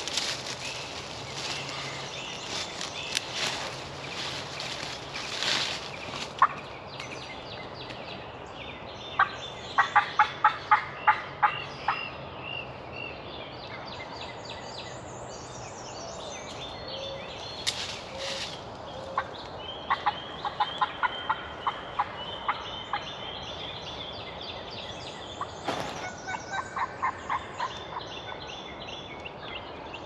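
Wild turkey sounds: three loud runs of about ten sharp yelping notes, roughly ten seconds apart, with a tom turkey gobbling far off in the woods.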